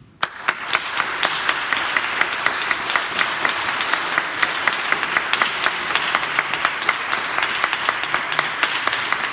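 Audience applause breaking out suddenly after a silence, with one person clapping loudly close by at about four claps a second over the steady applause of the crowd.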